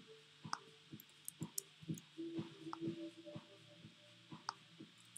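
Faint background music of plucked notes that ring on and overlap, with several short, sharp clicks of a computer mouse.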